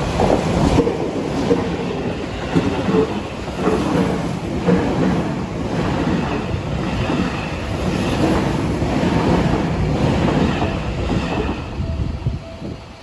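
Seibu Railway electric train passing close by, its wheels clattering over the rail joints, with the sound dropping away near the end as the train clears.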